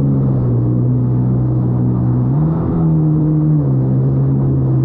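Yamaha WaveRunner's four-stroke engine running at speed as the jet ski rides through chop, a steady drone that rises a little in pitch just past two seconds in and drops back about a second later.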